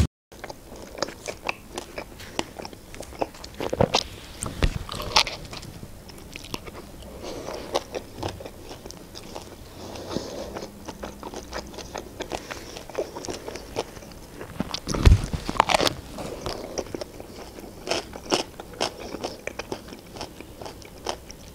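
Close-up chewing and biting of a chicken-breast shawarma wrapped in lavash, with many small irregular clicks from the mouth and the paper napkin. A few louder knocks stand out, the loudest about fifteen seconds in.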